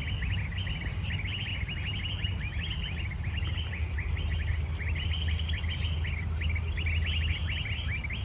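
Bird giving rapid chattering calls in repeated bursts, over a steady low rumble.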